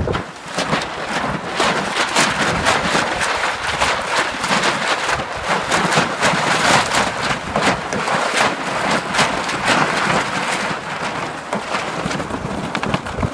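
Strong gusty wind with rain, a loud, even rushing noise broken by many short crackles as gusts and raindrops hit the microphone.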